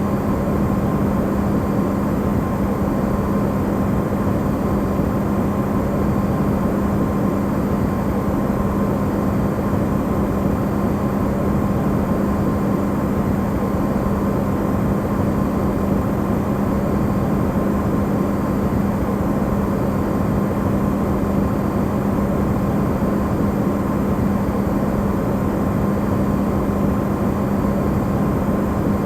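Electrolux refrigerator running, recorded amplified: a steady low hum over an even rushing noise, with a fainter higher tone, unchanging throughout.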